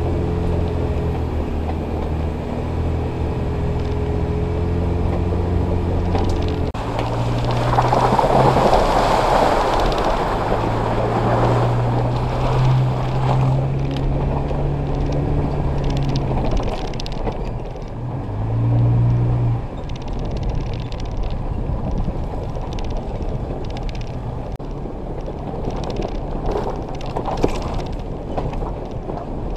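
Off-road vehicle's engine running at low trail speed, its pitch rising and dropping several times as the throttle is worked, with a swell of rushing tyre and brush noise for several seconds near the start and scattered small knocks of tyres over rocks and branches later.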